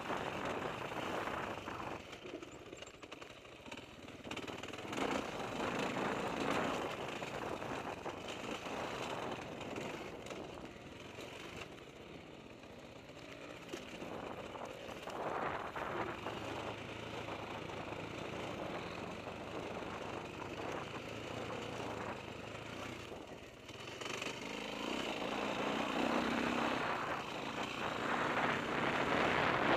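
Dirt bike engine heard from a helmet-mounted camera while riding, rising and falling with the throttle, mixed with wind noise on the microphone. It grows louder over the last few seconds.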